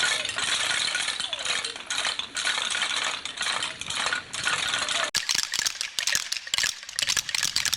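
Wooden Easter rattles (Klappern) rattling hard, a dense, rapid wooden clatter; about five seconds in it abruptly changes to a sharper, crisper clatter.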